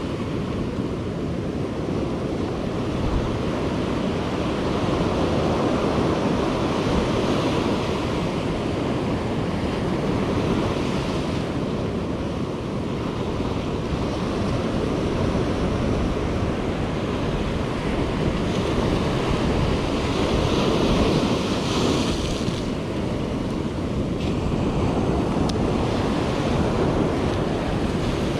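Ocean surf breaking and washing up a sandy beach, a continuous rush that swells and eases as the waves come in.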